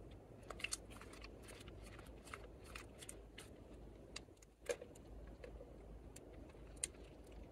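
Clear slime mixed with lipstick being squeezed and folded by hand, giving a run of small sticky clicks and pops, the sharpest a little past halfway, over a low steady background hum.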